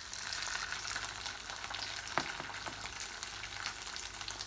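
Minced meat sizzling and crackling as it fries in a pan, with a single sharp knock of a utensil about two seconds in.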